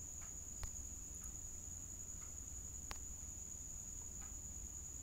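Faint background noise between speech: a steady high-pitched whine over a low hum, with a couple of faint clicks.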